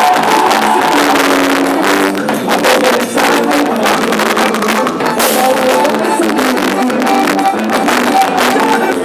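Music with sustained melody notes over a steady drum beat.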